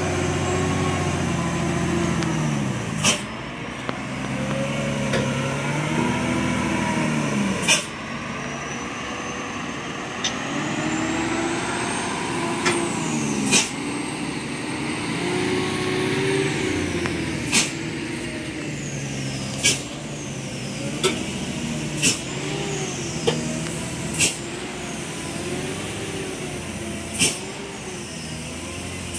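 Diesel engine of a fully loaded Hino 500 dump truck working down a steep, narrow dirt descent, its pitch rising and falling. Short sharp air-brake hisses break in about every two to four seconds.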